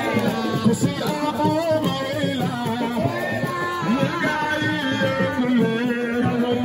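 Music with a singing voice over instruments, holding and bending long notes over a steady rhythm.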